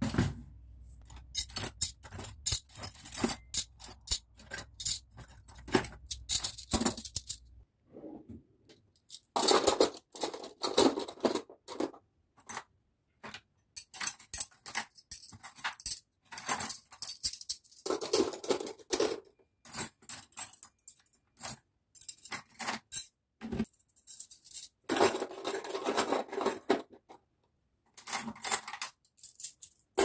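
Stainless-steel cutlery clinking and rattling as it is taken out of a plastic dishwasher cutlery basket and sorted into a plastic drawer tray, in runs of sharp clinks with short pauses. A low hum runs underneath and stops about eight seconds in.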